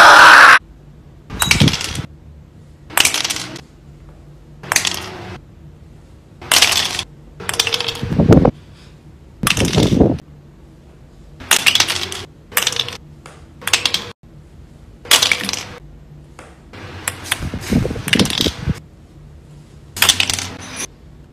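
Toy plastic hammer tapping the plastic ice blocks of a penguin ice-breaking game, one short sharp clack at a time with the loosened blocks clattering, about one a second and sometimes two in quick succession. A loud shout cuts off about half a second in.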